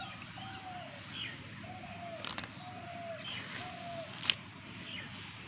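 Birds calling: a short whistled call that rises and falls, repeated four times about once a second, with higher chirps of other birds. Two sharp clicks, the louder about four seconds in.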